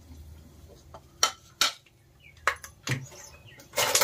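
Whole spices, dried red chillies and black peppercorns among them, spluttering in hot oil in a steel pot: sharp pops and crackles, the first about a second in, about half a dozen in all, with a longer crackle near the end.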